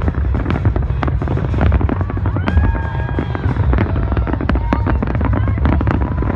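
Fireworks display: a dense, rapid run of crackles and bangs over a continuous low rumble.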